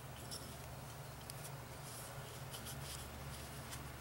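Faint handling noise: scattered small ticks and rustles as the wooden bow of a bow-drill fire set and its cord are handled, over a low steady hum.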